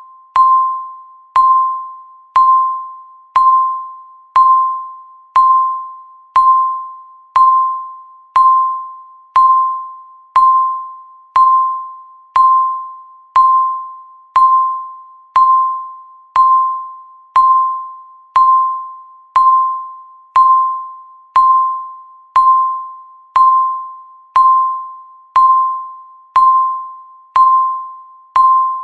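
Electronic countdown-timer beep sounding once every second, each a single clear tone that starts sharply and fades away, steady in pitch and loudness throughout.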